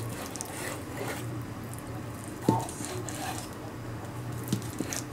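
Kitchen knife slicing through thick deep-fried tofu (atsuage) with soft squishing cuts. The blade knocks sharply on the cutting board about two and a half seconds in and twice close together near the end.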